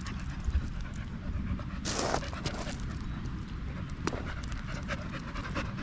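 Bully-breed dog panting, over a steady low rumble, with a short rushing burst about two seconds in.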